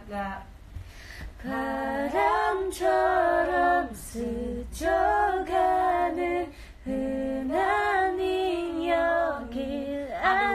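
A young woman singing unaccompanied, in phrases of held notes with short breaks between them.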